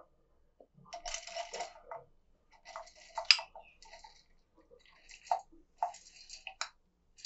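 Soaked urad dal pushed with a spoon from a glass bowl into an empty stainless-steel mixer-grinder jar. The wet lentils patter onto the steel in short bursts, with a few sharp clicks of the spoon and bowl.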